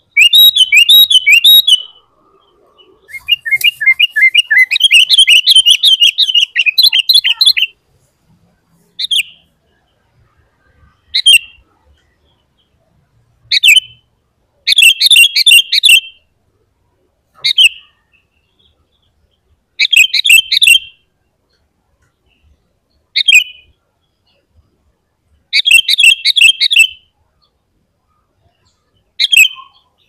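Sooty-headed bulbul (kutilang) singing loudly: two long runs of rapid, bubbly chattering notes in the first eight seconds, then shorter bursts of chirps and chatter every two to three seconds.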